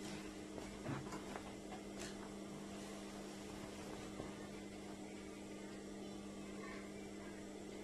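Steady electrical hum, with a few faint light taps about one and two seconds in as fabric and a ruler are handled.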